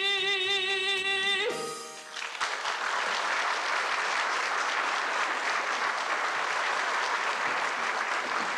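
A man's singing voice holds the song's final note with vibrato and cuts off about a second and a half in. Then the theatre audience breaks into steady applause.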